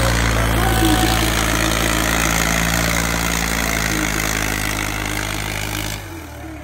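An engine running loud and steady, dropping away sharply about six seconds in.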